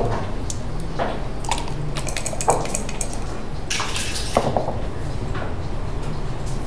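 Backgammon checkers clicking as they are set down on the board, a few separate clacks, then about four seconds in a quick rattle and clatter of dice being rolled onto the board.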